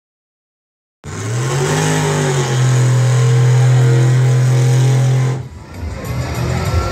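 Truck engine revving up, dipping briefly, then held at steady high revs, cutting off abruptly about five seconds in, after which a rougher engine sound follows.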